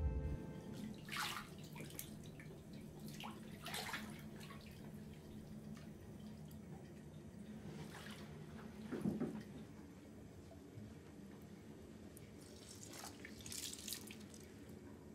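Faint water in a shower: a few separate splashes and drips as water is poured over hair from a plastic cup, over a low steady hum.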